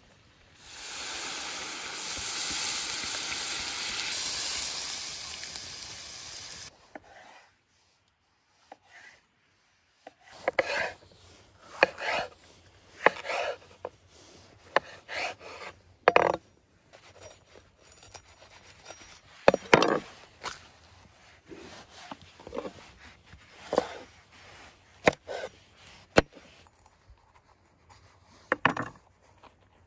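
Liquid poured from a clay jug into a hot kazan of frying meat, hissing loudly for about six seconds before it stops abruptly. Then a chef's knife slices bell peppers on a wooden cutting board, in irregular sharp strokes.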